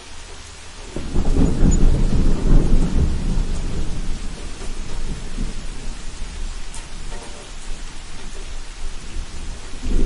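Steady rain with a roll of thunder that breaks in about a second in, loudest for a couple of seconds and slowly dying away. Another low rumble swells right at the end.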